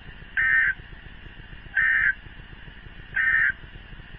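Emergency Alert System end-of-message code: three short bursts of screechy digital data tones, about a second and a half apart, signalling that the severe thunderstorm warning broadcast has ended.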